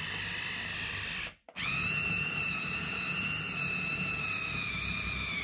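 Electric food chopper's motor whining as its blades grind vegan ham with batter flour into a paste. It cuts out briefly about a second and a half in, then starts again with a quickly rising whine whose pitch sags slightly as it runs.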